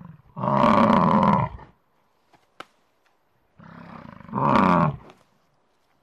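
Yak calling: two loud, low bellowing calls. The first comes about half a second in and lasts over a second; the second, shorter, comes near five seconds in after a quieter rumbling lead-in.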